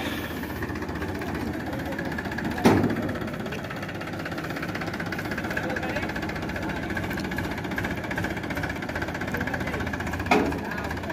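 Powertrac Euro 50 tractor's diesel engine running steadily, with two sharp knocks, the first a few seconds in and the second near the end.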